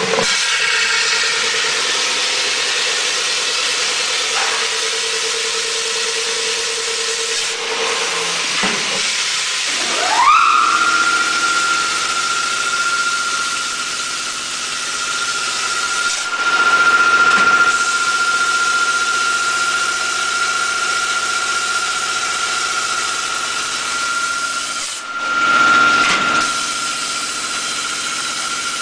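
Automatic dry-type garlic peeling machine running: compressed air blowing through it with a loud steady hiss. About ten seconds in a whine rises in pitch and settles into a steady high tone, with a few louder surges of air.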